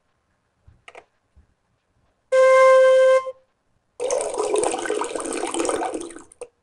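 Novelty sound effects: a steady, loud hooting tone held for about a second, then after a short gap about two seconds of rushing, gushing noise that fades out, with a few faint clicks at the start.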